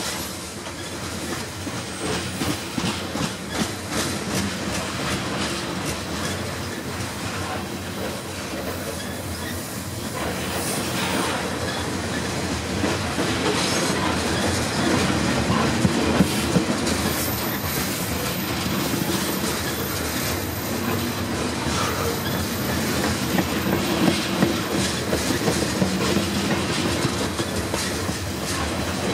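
Grain train's covered hopper cars rolling past at trackside: steel wheels click over the rail joints in a steady clickety-clack over a continuous rumble. A thin high squeal comes and goes in the second half.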